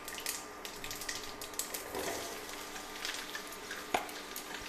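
Mustard seeds crackling and popping in hot oil in a stainless steel kadhai, with a denser sizzling rush about two seconds in as chopped bottle gourd is tipped into the oil. One sharp knock just before the end.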